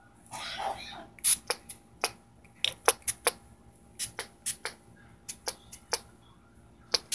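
Handling noise right at the camera microphone as skin presses over the lens: a short rustling brush in the first second, then about twenty sharp, irregular clicks and taps.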